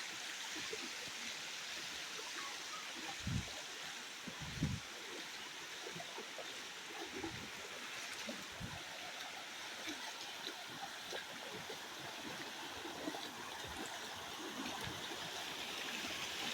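Water of Bua Tong Waterfall running over its shallow cascades, a steady rushing stream sound. A couple of short soft knocks sound about three and four and a half seconds in.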